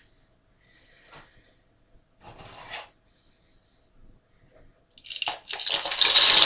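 Water poured from a glass jug into a saucepan, starting about five seconds in and getting louder toward the end, after a few faint handling knocks.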